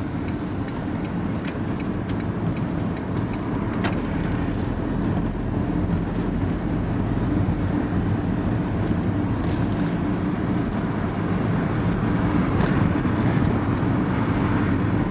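Steady drone of engine and road noise inside a moving vehicle's cab.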